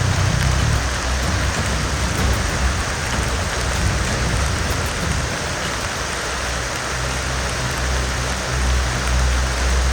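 Heavy rain falling steadily, an even hiss of drops on surfaces, with a low hum underneath that grows stronger near the end.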